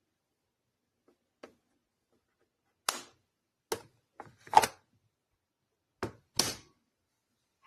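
A series of short, sharp clicks and knocks, about seven of them, irregularly spaced with silence between; the loudest comes a little past the middle.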